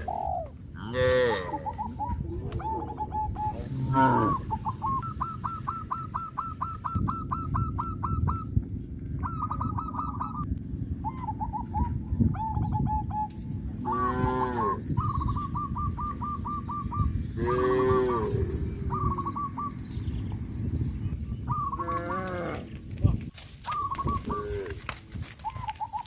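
Cows mooing several times, each call bending in pitch. Between the moos runs a rapid, evenly repeated high call, over a steady low rumble.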